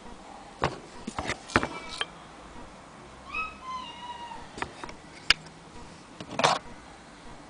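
Metal parts of an antique Willcox & Gibbs sewing machine clicking, knocking and rattling as they are handled, with a sharp click about five seconds in and a louder rattle soon after. A cat meows twice briefly, rising then falling, about three seconds in.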